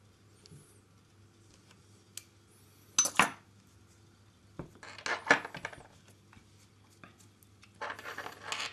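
Small metal and plastic RC helicopter parts and tools clicking and clattering as they are handled: three short bursts of clicks, about three seconds in, about five seconds in and near the end.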